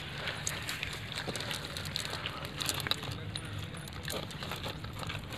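Light rustling and scattered small clicks from a fishing net being handled as fish are worked free of its mesh by hand.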